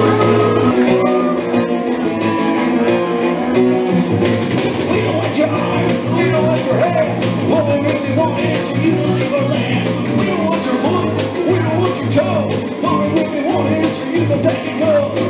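Live rock band playing a song on electric guitar, bass guitar and drum kit. A held chord rings at the start, and the drums come in about a second in with a steady beat.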